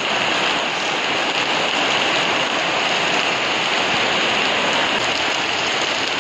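Heavy rain pouring down hard and steady, a dense even hiss of falling drops.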